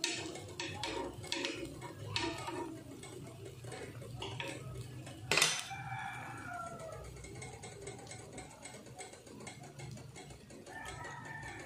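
An animal's call, loud and falling in pitch, about five and a half seconds in, with a shorter pitched call near the end. There are a few light clicks in the first two seconds and a steady low hum underneath.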